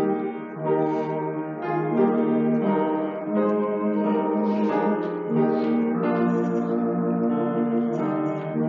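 Slow instrumental music: sustained chords, each held about a second before changing.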